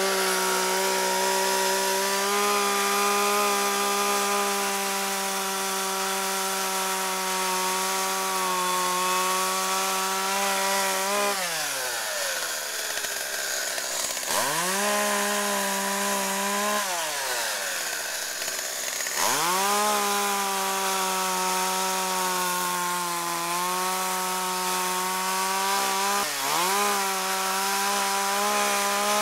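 Small two-stroke petrol chainsaw running at high revs while cutting pecan limbs. Twice in the middle the throttle is let off and the engine falls toward idle, then revs straight back up; the pitch sags a little as the chain bites into the wood.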